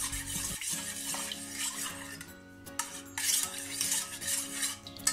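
A spoon stirring a thin tomato-paste and stock mixture in a small stainless-steel saucepan, scraping and clinking against the pan's sides and bottom in short, irregular strokes.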